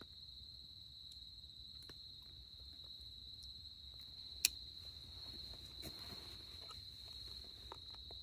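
Crickets trilling in one steady high tone, with a few faint ticks and one sharp click about four and a half seconds in.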